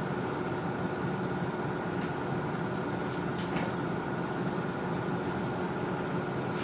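A steady mechanical hum with two faint steady tones, and a few faint clicks around the middle.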